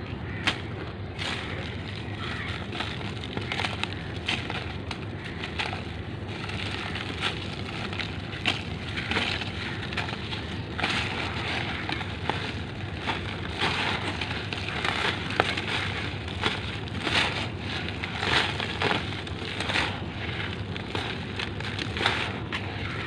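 Dry lumps of reused cement crumbled by hand and poured back onto a heap on a plastic bag: continuous gritty crunching with many small sharp crackles.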